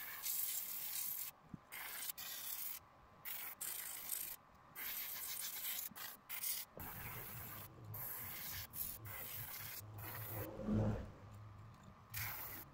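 Airbrush spraying paint in short on-off hisses as the trigger is pressed and released. A low steady hum sets in about seven seconds in.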